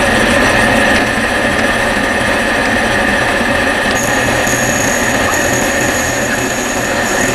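Drill press running at 2400 RPM with a 1/2-inch square end mill cutting a pine board: a loud, steady motor and spindle hum with a whine, and the rough hiss of the cutter shaving the wood. A higher whine joins about four seconds in.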